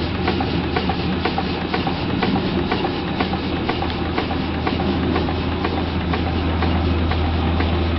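Antique horizontal steam engine running on live steam: a steady hiss of steam with an even beat of about three to four clicks a second from its cylinder and valve gear, over a constant low hum.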